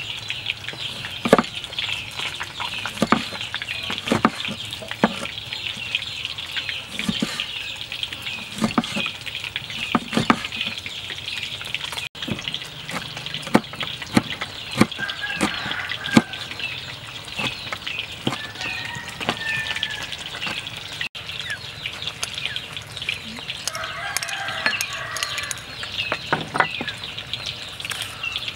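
Cleaver chopping limes and chillies on a wooden chopping board, irregular sharp knocks every second or so. Behind it runs a steady high chirping, and a chicken clucks a few times in the middle and later part.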